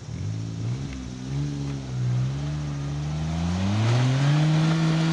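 Suzuki Jimny engine revving under load on a steep dirt climb. The revs waver at first, then rise steadily and climb sharply about four seconds in, holding high and getting louder near the end.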